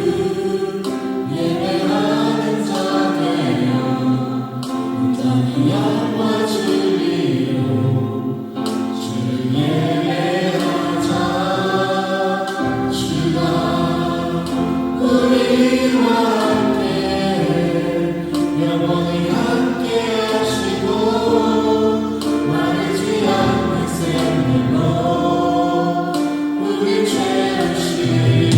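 Choir singing a slow hymn-like song, many voices holding and moving through sustained chords.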